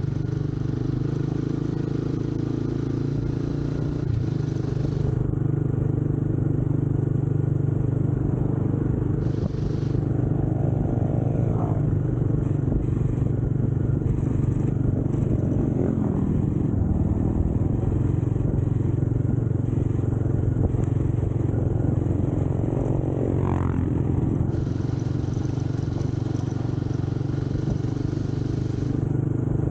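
Scrambler motorcycle engine running steadily, with its pitch briefly rising twice, about a third of the way in and again after two thirds.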